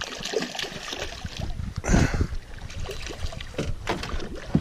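Water splashing and sloshing around a small fishing boat while a hooked northern pike is fought, with scattered clicks and knocks, and a louder splash about two seconds in.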